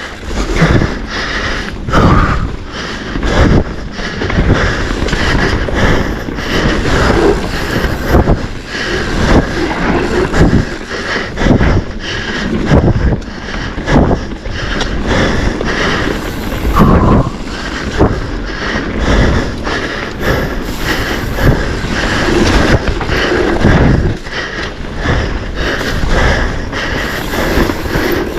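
Mountain bike ridden fast down a rough dirt trail: the bike rattling and knocking over roots and rocks, with wind rushing on the microphone.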